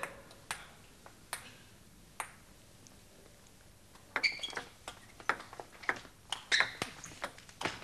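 Table tennis ball clicking: three single taps spaced about a second apart, then from about four seconds in a fast rally of the celluloid ball striking bats and table, with several hits a second.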